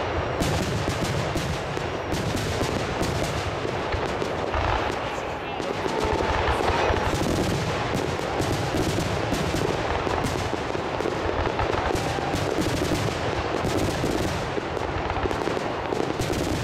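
Fireworks barrage: many aerial shells and comets bursting in quick succession, a dense, continuous rattle of overlapping bangs and crackles with no pause between them.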